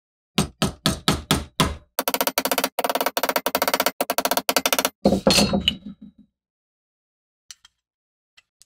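Small hammer striking a metal handle pin set in a wooden knife scale on a steel block: about seven separate taps, then about three seconds of rapid tapping, dying away about six seconds in. A few faint clicks follow near the end.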